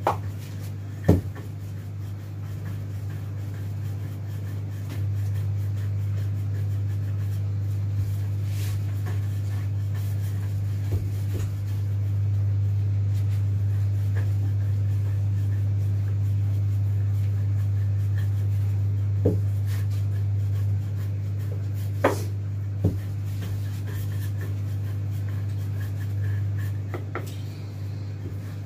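A steady low hum, with a few sharp taps and knocks from rolling icing being worked by hand and rolling pin on a countertop.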